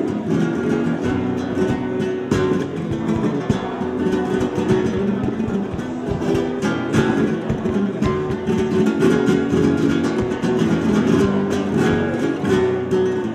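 Spanish guitar playing, a mix of quick plucked notes and sharp strummed chords.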